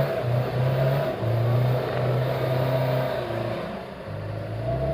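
Off-road 4x4's engine running under load, a steady drone broken by brief dips, easing off about three and a half seconds in.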